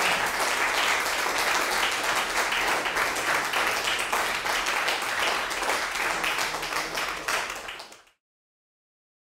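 Audience clapping: sustained applause that fades about eight seconds in and then cuts to silence.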